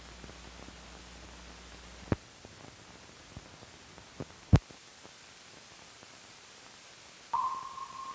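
Hiss of an old optical film soundtrack, with a low hum that drops out about two seconds in and scattered clicks and pops; the loudest is a sharp pop about four and a half seconds in. Near the end a high steady tone sounds and fades.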